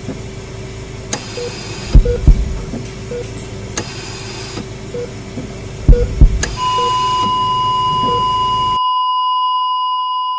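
Slow doubled heartbeat thumps, two pairs about four seconds apart, over a low steady hum with faint beeps. About six and a half seconds in, a steady high monitor tone begins: a flatline, the sign that the patient's heart has stopped. About two seconds later the hum and the rest drop out, leaving the tone alone.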